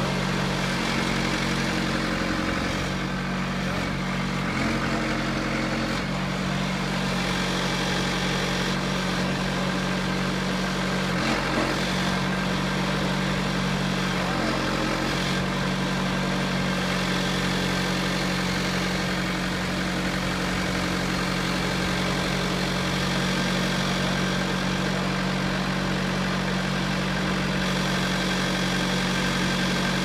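Backhoe engine idling steadily.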